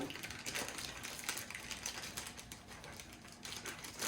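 Small plastic kit parts clicking and rattling lightly as they are handled and fitted, in quick irregular ticks.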